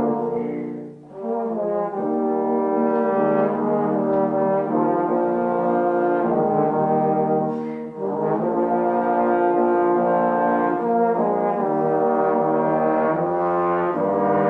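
Trombone quintet playing a slow sacred song in sustained, layered chords, with brief breaks between phrases about a second in and again near eight seconds.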